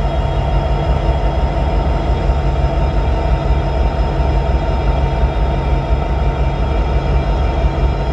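Canadian National diesel-electric locomotives running, a steady loud engine drone with a deep rumble underneath.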